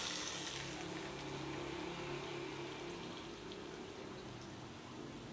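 Hot cooking oil, heated to boiling, being poured slowly from a frying pan onto raw garlic, chili and chili flakes in a bowl, sizzling. The sizzle is loudest at the start and dies down to a faint hiss within about a second.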